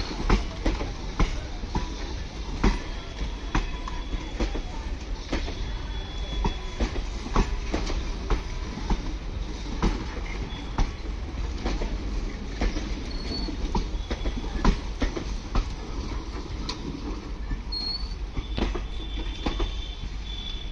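Train rolling on the track: a steady low rumble with wheels clacking over rail joints in an irregular run of sharp knocks, and brief high wheel squeals a few times.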